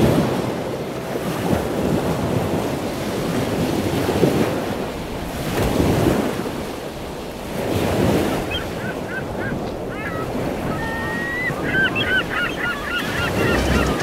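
Atlantic Ocean surf breaking on the beach, with the wash swelling and falling every couple of seconds and some wind on the microphone. About two-thirds of the way in, a rapid series of short, high, wavering sounds starts and grows busier toward the end.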